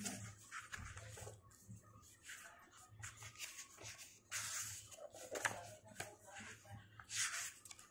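Paper pages of a large hardcover book being turned by hand, a few short rustling swishes, the loudest about halfway through and near the end.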